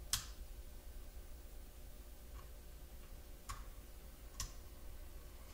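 Computer mouse clicking a few times with short, sharp clicks: one at the start, a faint one a little past two seconds, then two more about a second apart.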